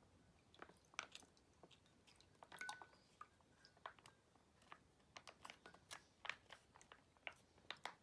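A soy milk pouch being squeezed and poured into a glass cup: faint crinkling with many small irregular clicks and crackles.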